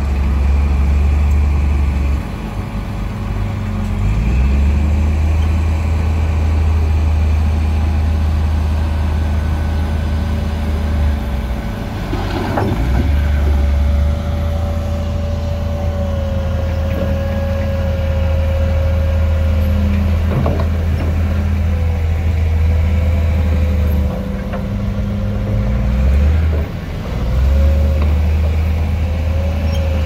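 Bulldozer's diesel engine running hard and steady, with a thin wavering whine above the engine note and a couple of sharp clanks. The engine sound drops off briefly a few times.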